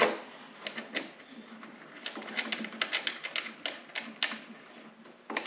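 Light, irregular metallic clicks of hardware and hand tools as a rack bracket is tightened down onto a snowmobile's tunnel. The clicks come in quick runs, thickest about two to four seconds in.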